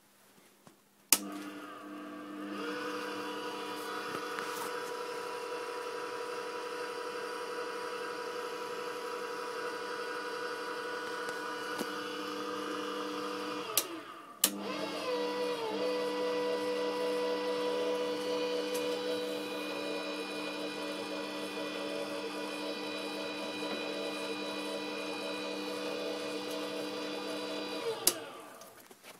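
Small lathe running under its electric motor, a steady whine of motor and gears. It starts with a switch click about a second in, stops for a moment between two clicks about halfway, starts again, and is switched off with a click near the end.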